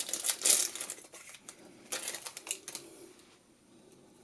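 A plastic lens cap buckle and its packaging being handled, giving a quick run of light clicks and rustles that die away about three seconds in.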